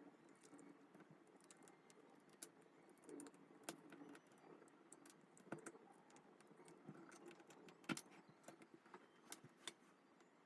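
Faint, scattered clicks and taps of hands handling K-pop album packaging and its contents, irregular and a few per second at most.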